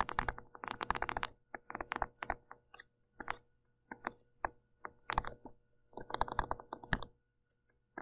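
Stylus writing on a pen tablet: irregular bursts of short scratchy strokes and taps as words are handwritten.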